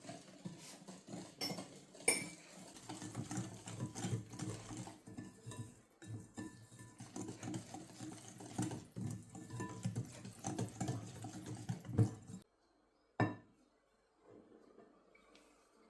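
Kitchen utensils clinking and scraping against dishes in an irregular clatter that breaks off suddenly after about twelve seconds, followed by a single knock.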